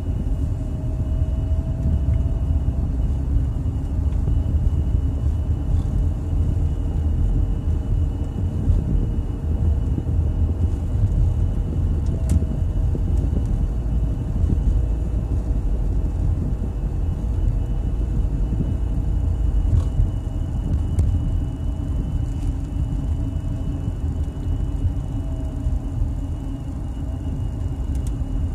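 Steady low rumble of a car's engine and tyres on a paved road, heard inside the cabin while driving, with a faint steady high whine above it.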